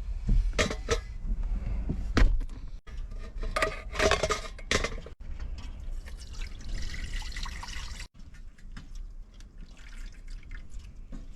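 Food being rinsed in water: splashing and pouring, with clinks and knocks of a pot and utensils. A steady hiss of running or poured water comes from about six to eight seconds in, and the sound breaks off sharply several times.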